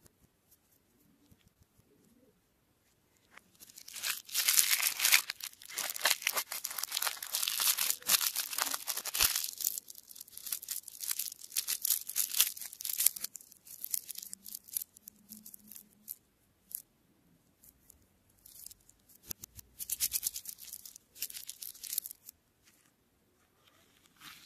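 Plastic candy wrapper crinkling and tearing as a small lollipop is unwrapped by hand. There is a long spell of dense crackling starting about four seconds in, then quieter handling, then a shorter burst of crinkling near the end.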